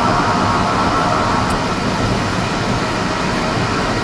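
Cessna P210 Silver Eagle's Rolls-Royce 250 turboprop engine and propeller running steadily, heard from inside the cockpit: a dense roar with a steady high whine.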